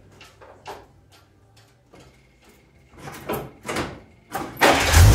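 Scattered knocks and clunks, then about four and a half seconds in the 1946 Dodge Power Wagon's flathead six-cylinder engine catches and runs loudly. It fires up after a tune-up with re-adjusted ignition points.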